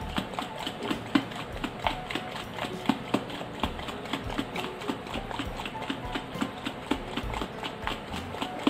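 A lidded jar of whipping cream shaken hard by hand, knocking about four times a second. The cream has broken, and the separated butter thuds inside the jar with each shake.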